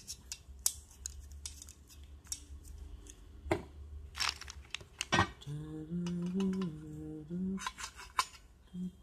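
Steel TV wall-bracket parts clinking and knocking as they are handled, with a handful of sharp metallic clicks. A voice hums briefly a little past the middle.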